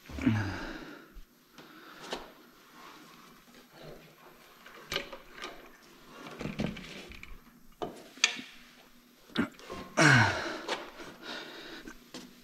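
Hands working on parts and fittings in a truck's engine bay: scattered small clicks, light knocks and rustling, with a louder patch of handling noise about ten seconds in.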